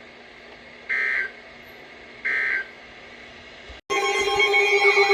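Emergency Alert System end-of-message data bursts: two short buzzing bursts about a third of a second long and about a second and a half apart, over faint hiss. About four seconds in it cuts abruptly to a loud electronic alert tone: steady tones under a fast-repeating, siren-like warble.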